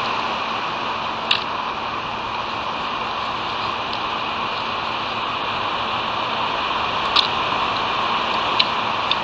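Steady rushing outdoor noise picked up by a cliff-top eagle nest camera's microphone above the sea, with a few short sharp clicks: one about a second in and three near the end.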